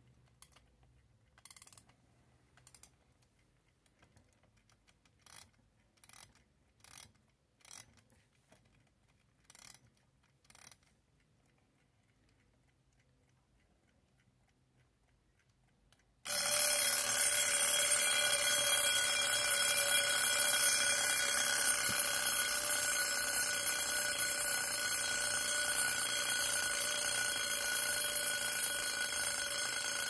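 Old Junghans mechanical wind-up alarm clock: a few faint clicks in the first ten seconds, then about 16 seconds in its alarm bell starts ringing, loud and continuous, easing only slightly.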